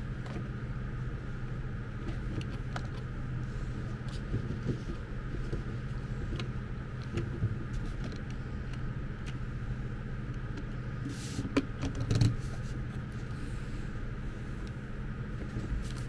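Small plastic clicks and taps as the electric kettle's plastic handle and switch parts are handled and fitted onto the body, with a couple of sharper clicks about eleven and twelve seconds in, over a steady low hum.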